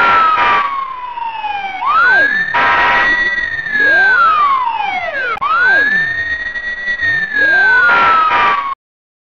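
Fire engine siren sound effect wailing in long rising and falling sweeps, about one every three and a half seconds, broken by three short blasts. It cuts off suddenly near the end.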